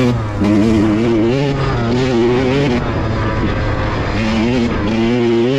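Yamaha YZ125 two-stroke dirt bike engine running under way, its pitch climbing and dropping several times as the throttle is worked.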